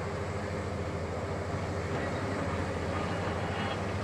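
Hitachi KMC870 demolition excavator's diesel engine running steadily, a low even drone as it holds and slowly shifts its long telescopic demolition boom.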